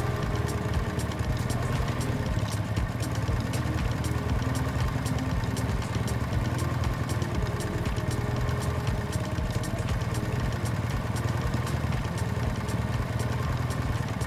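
Motorbike engine running steadily, with an even hum that neither rises nor falls.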